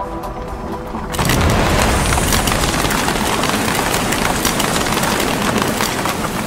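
Electronic music cuts off about a second in as a cartoon bomb-blast sound effect goes off: a boom followed by a dense run of rapid crackling pops, like a burst of popcorn, slowly fading.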